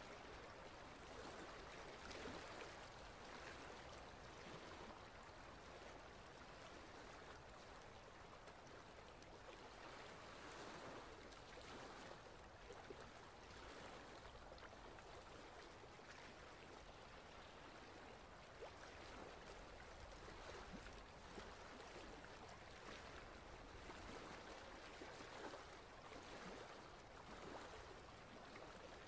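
Near silence: a faint, steady outdoor hiss with nothing standing out.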